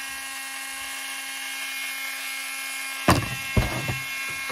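Dremel rotary tool running at a steady pitch, free-spinning rather than cutting. About three seconds in, a few sharp knocks on the workbench.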